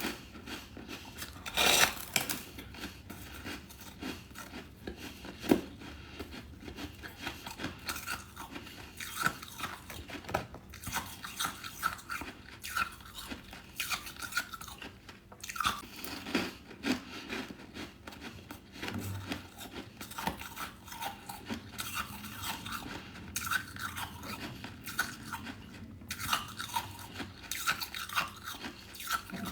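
A person biting and chewing hard freezer frost. One loud crunching bite comes about two seconds in, followed by a long run of small crisp crunches that grow thicker again near the end.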